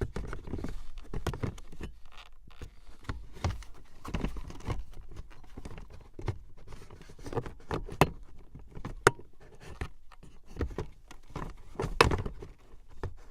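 Plastic center console assembly being worked into place on its metal base bracket: repeated knocks, clicks and scrapes of plastic against plastic and metal as it is pushed and shifted past the cup holder clips, with a few sharper clacks.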